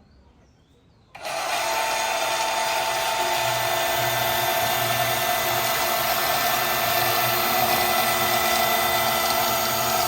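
A power tool starts about a second in and runs steadily with a whine, cutting through a welded carbon steel pipe.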